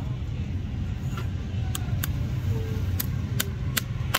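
Several sharp, irregularly spaced taps of a farrier's hammer on a horse's shoe and nails, over a steady low engine-like rumble.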